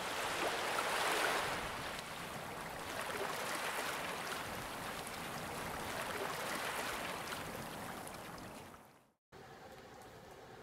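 A steady, water-like rushing noise, strongest in the first two seconds and fading out about nine seconds in. A faint steady hum follows near the end.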